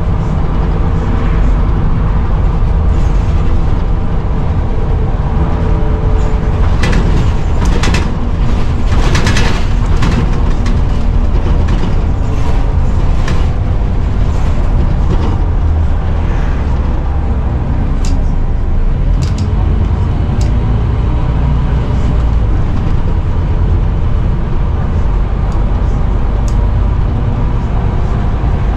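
Scania Omnicity single-deck bus (Scania CN230UB chassis) heard from inside while under way: steady running rumble with a whine from a worn-out ("knackered") rear differential. Sharp rattles and knocks from the bus body come in now and then, mostly in the middle of the stretch and again around two-thirds through.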